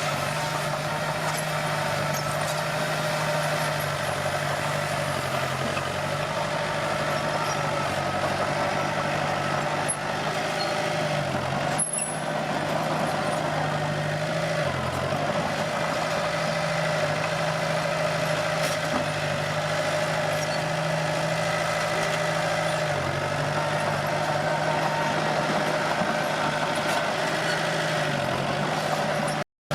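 Komatsu D21P crawler bulldozer's diesel engine running steadily under work. Its note sags briefly about four times as it takes load, with a few faint clanks.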